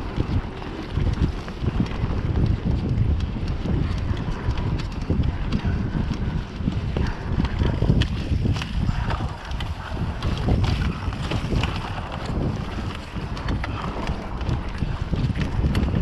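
Mountain bike riding over a bumpy grass trail: wind buffeting the microphone, with tyre rumble and a steady run of quick knocks and rattles from the bike over the bumps.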